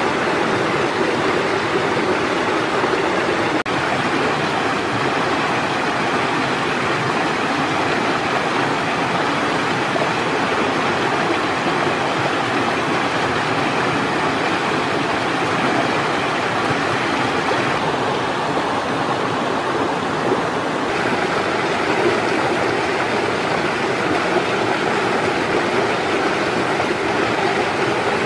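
Steady rush of flowing water from a stream, an even hiss that does not change.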